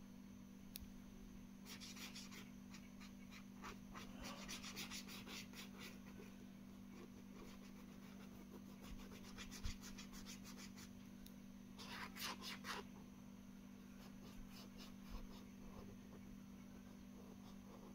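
Felt-tip marker scratching back and forth on paper, colouring in with rapid strokes in several short spells, over a steady low hum.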